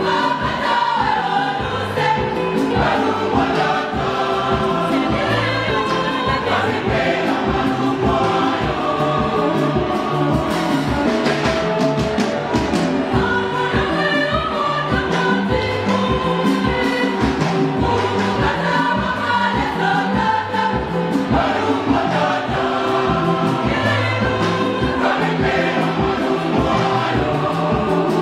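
A mixed youth choir of men and women singing a gospel song, with a steady low beat underneath.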